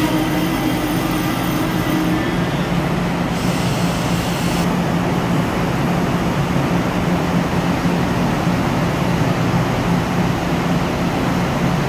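Mugunghwa-ho diesel passenger train stopping at an underground platform: the brake squeal dies away about two seconds in and a high hiss cuts off a few seconds later. A steady low hum from the standing train runs throughout.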